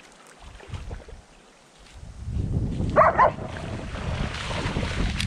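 A German shepherd gives a short whine about three seconds in. From about two seconds in it is set against a rough rushing noise that stays loud.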